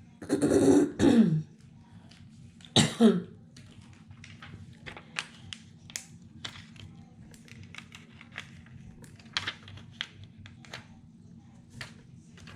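A woman clearing her throat harshly just after the start and again briefly about three seconds in, from a sinus infection. After that, faint light taps and rustles of paper pieces being handled and pressed down.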